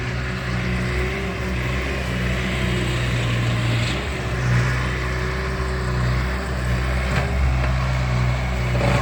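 Engine of a construction machine running steadily, with a constant higher whine over the low engine hum, as it works at breaking up concrete slabs.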